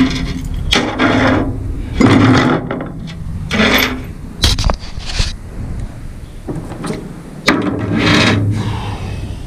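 Rasping metal-on-metal scrapes, about half a dozen separate strokes with a sharp clink about halfway through: heavy cast-iron vise parts being handled and slid on a steel diamond-plate bed.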